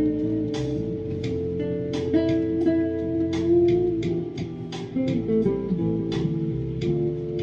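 Squier junior electric guitar played slowly: single notes and small chords picked a few times a second and left to ring into one another.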